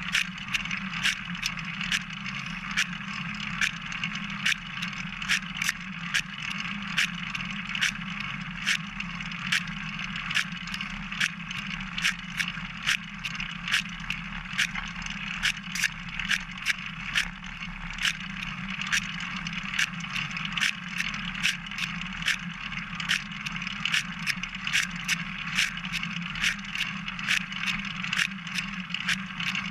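Single-speed bicycle rolling along a trail, heard from a camera mounted on its frame: steady tyre and frame noise with a sharp, regular click about twice a second.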